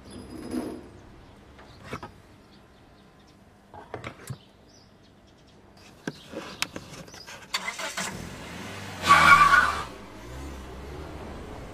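A few clanks and clicks, the first as a valve-box cover is lifted, then a van's engine starting about eight seconds in. It revs loudly for about a second, then runs steadily.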